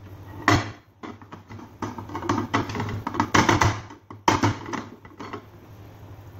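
An upturned aluminium baking pan knocked down onto a plate, then a run of quick taps and knocks by hand on its bottom to loosen the baked apple tart so it drops out onto the plate. A sharp knock comes about half a second in and another just after four seconds.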